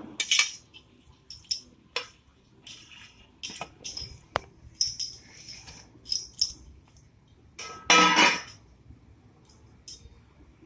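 Light clinks and scrapes of a utensil against a stainless steel bowl as grated coconut is tipped in onto sesame seeds and puffed rice, with one louder ringing metal knock about eight seconds in.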